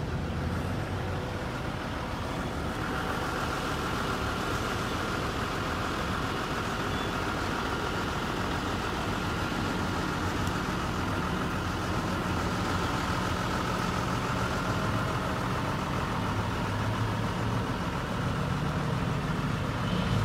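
Wheel loader's diesel engine running steadily while it holds a pulling tractor hanging from its forks. A steady higher whine joins about three seconds in.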